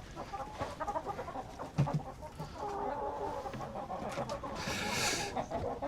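Domestic hens clucking and murmuring in short, repeated calls, with a brief rustle near the end.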